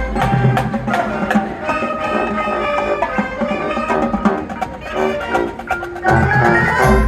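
High school marching band playing a field-show number: quick mallet-percussion notes and drums over sustained brass chords. Heavy low drum hits come near the start and again about six seconds in.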